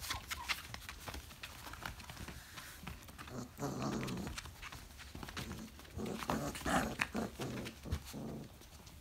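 Four-and-a-half-week-old Briard puppies play-wrestling: small growls and yips in two spells, about four seconds in and again around six to seven seconds, among scratchy clicks of paws on a plastic tarp.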